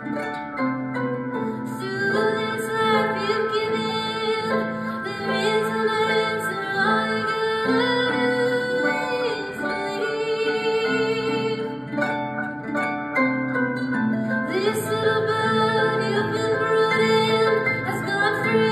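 Live band music led by plucked harp, over a bass line, with a held melody line that slides between notes.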